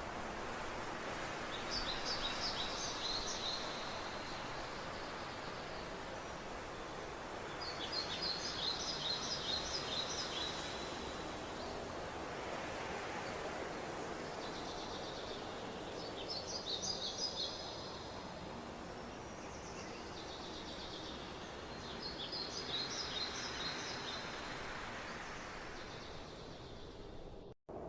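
Forest ambience: a steady rushing background with a songbird singing a short, rapid trilled phrase four times, about every six seconds. The sound cuts out for a moment near the end.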